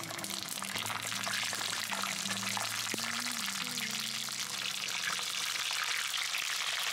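Hot oil sizzling with a dense, steady crackle as potato-stuffed green bell peppers deep-fry in a pan.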